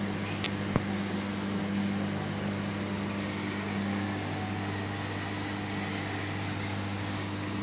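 Steady low machine hum over a hiss, the running noise of aquarium equipment, with one short sharp click just under a second in.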